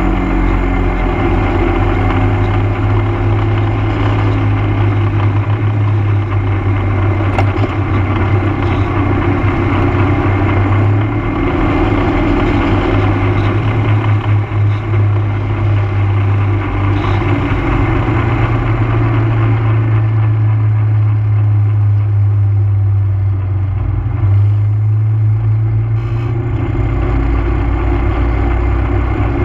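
ATV engine running steadily under way on a paved road, its low note shifting slightly a few times as the speed changes.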